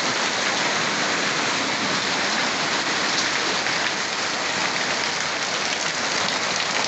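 Heavy rain pouring steadily, mixed with the rush of storm runoff water.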